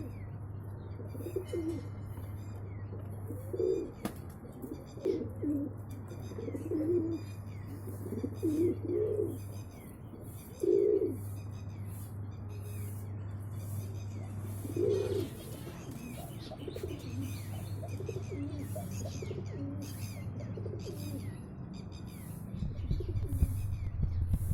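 Pet birds calling: low, cooing calls repeat every second or two, with higher chirps and short falling whistles over them. A steady low hum runs underneath and drops out for a few stretches.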